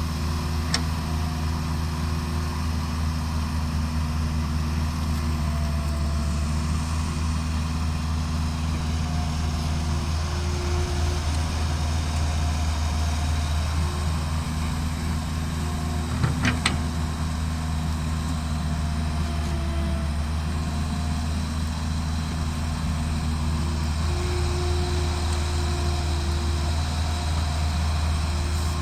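Heavy diesel engine running steadily, with a sharp knock about a second in and a couple of sharp clanks about sixteen seconds in.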